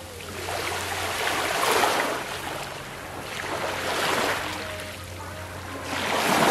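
Small ocean waves lapping onto a pebbly beach, washing in three times about two seconds apart, each swelling and then fading.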